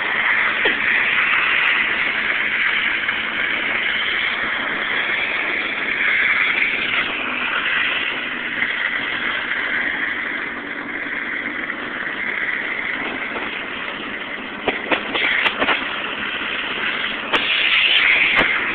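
Steady road noise of a vehicle driving on a gravel road while towing a couch: tyres on gravel and rushing air, with a few short knocks near the end.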